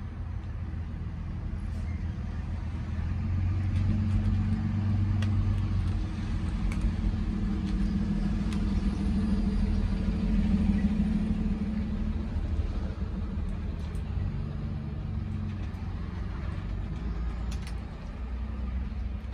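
A motor vehicle's engine running with a steady low hum that grows louder about four seconds in and eases off after about twelve seconds.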